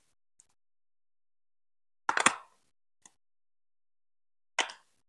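Hard plastic Lego Duplo pieces being pressed onto the studs of other bricks: a quick cluster of sharp clicks about two seconds in, a faint single click a second later, and another clicking snap near the end.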